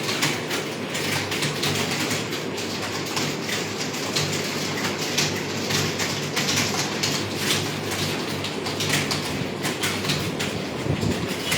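Computer keyboard keys clattering in rapid, irregular strokes of fast typing, over a steady low hum.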